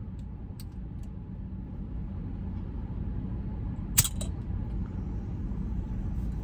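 The marble of a Ramune marble-soda bottle is forced down by its plastic plunger opener with one sharp pop about four seconds in, with a few smaller clicks just after it. A couple of faint plastic clicks come in the first second, and a steady low hum runs underneath.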